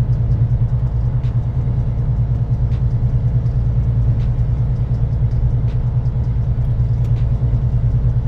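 Semi truck's diesel engine and road noise heard from inside the cab while cruising at a steady highway pace: a steady low rumble with a fast, even pulse, with a few faint ticks here and there.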